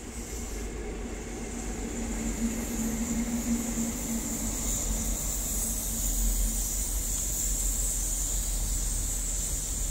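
InterCity 125 HST Class 43 diesel power car passing, with a steady engine note for a few seconds, then its Mark 3 coaches rolling by with a rumbling rush of wheels on rail that grows louder.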